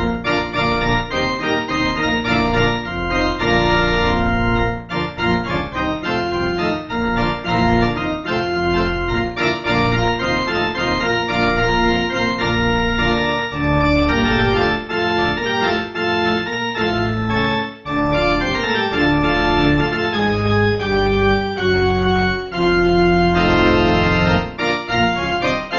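Organ playing the closing voluntary of a church service, a medley of tunes on the theme of money, in sustained chords moving from note to note, with a brief break about two-thirds of the way through.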